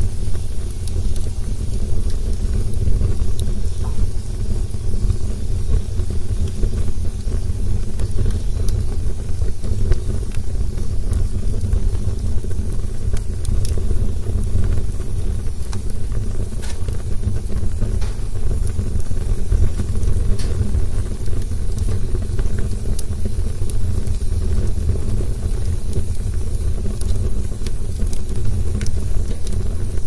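A wood fire of dry branches burning: a steady deep rumble of flames with scattered sharp crackles and pops throughout.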